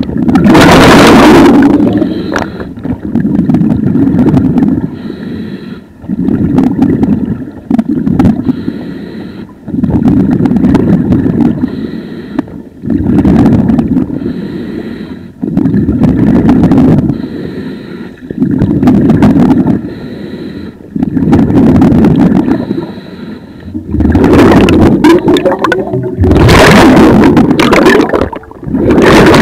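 A diver breathing underwater through a scuba regulator: regular breaths about every two and a half to three seconds, each exhale releasing a rush of bubbles past the camera.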